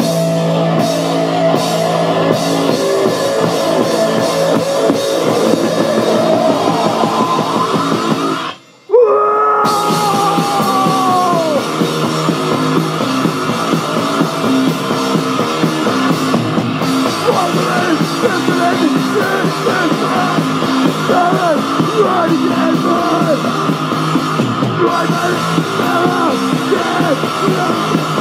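Live punk band playing loud and distorted, with guitar, bass, drums and some vocals. About nine seconds in, the sound cuts out for about a second. It comes back with a long falling tone over the band.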